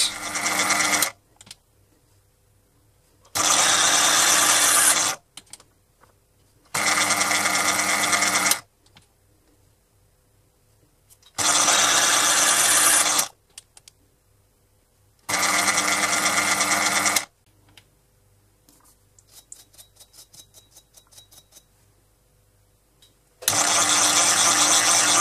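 Proxxon PD 250/E mini lathe running in short spells of about two seconds each, starting and stopping sharply with quiet gaps between: successive passes cutting a fine left-hand thread. In one of the gaps there is a faint, quick ticking.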